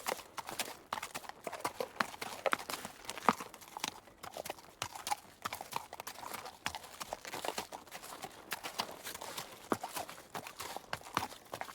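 Horse hooves clip-clopping in an uneven rhythm of sharp knocks, several a second.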